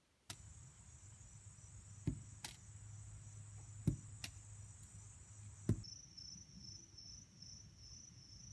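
Lacrosse ball being thrown and caught: three sharp knocks about 1.8 seconds apart, the first two each followed by a softer click. Under them insects drone steadily at a high pitch, with a low hum.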